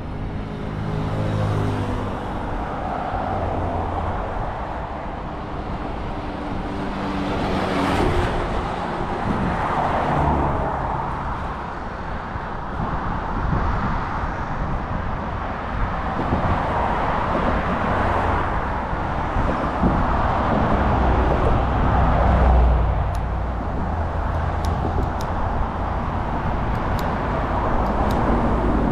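Road traffic going by in a steady stream, with the noise swelling several times as vehicles pass and the low hum of an engine in the first few seconds.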